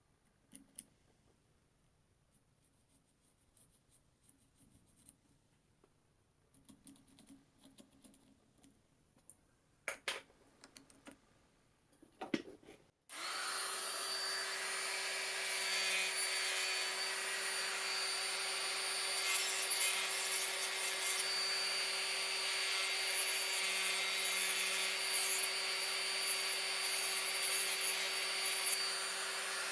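Faint handling clicks and taps, then about 13 seconds in a power tool switches on abruptly and runs steadily with a constant hum and hiss.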